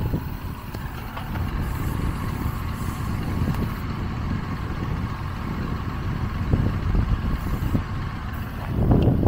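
Wind buffeting the microphone: a low, uneven rumbling rush that swells near the end.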